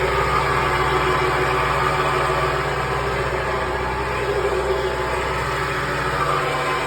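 1994 Subaru Vivio running steadily with a grinding noise whose cause the owner does not know.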